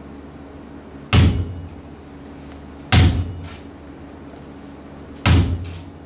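A ball bounced on a stage floor three times, about two seconds apart, each bounce a single hollow thud with a fainter tap just after it.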